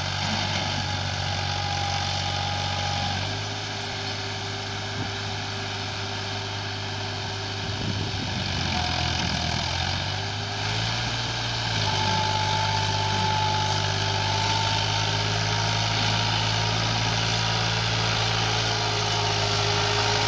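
Massey Ferguson 260 tractor's three-cylinder diesel engine running steadily while pulling a disc harrow through ploughed soil, with a thin whine over it. The engine note shifts twice, about three seconds in and again about eleven seconds in.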